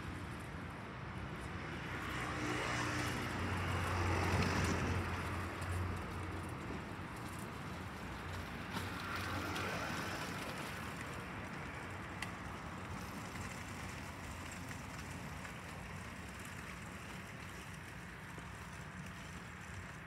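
A vehicle passing out of view, its noise swelling to a peak about four seconds in with a low steady hum underneath, a smaller swell around ten seconds in, then fading to a steady background.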